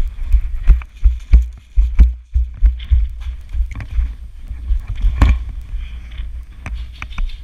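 Airsoft guns firing irregular single shots, sharp snaps scattered through the stretch, the loudest about five seconds in, over a low, uneven rumble.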